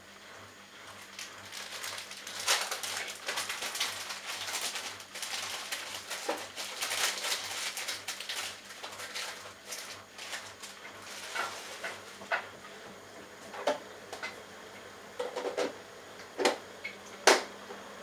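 Bosch Logixx WAS32461GB front-loading washing machine going into its inter spin after a rinse: the drum speeds up toward 400 rpm, with wet laundry and water swishing and spattering inside. In the second half a series of separate sharp clatters stands out, the loudest near the end.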